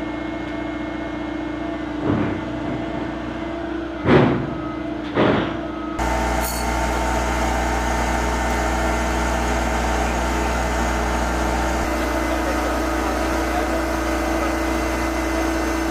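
Steady mechanical hum of running machinery. Three short, loud swells rise and fade in the first six seconds, and the hum turns louder and deeper with a cut about six seconds in.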